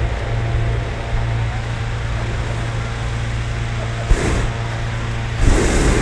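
Small petrol engine of a hot-air balloon inflator fan running steadily at an even speed. A sharp knock comes about four seconds in, and short rushing bursts come shortly after and again near the end.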